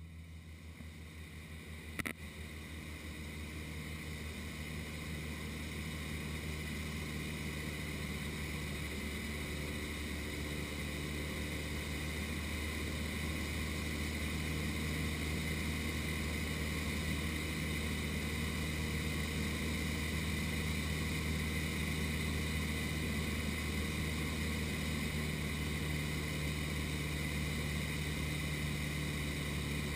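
Cessna 152's four-cylinder Lycoming engine and propeller droning steadily in cruise, heard from inside the cabin with a rush of airflow. The drone grows louder over the first several seconds, with one sharp click about two seconds in.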